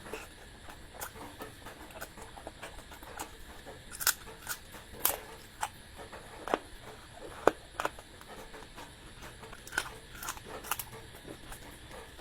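Close-miked eating sounds: chewing with irregular sharp mouth clicks and smacks, most of them from about a third of the way in to near the end.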